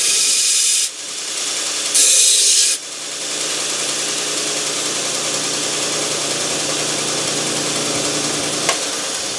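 Belt sander running, with a steel knife blade pressed against the abrasive belt twice in the first three seconds, giving a loud grinding hiss each time. Between and after the passes the sander runs steadily without contact, then is switched off near the end and winds down.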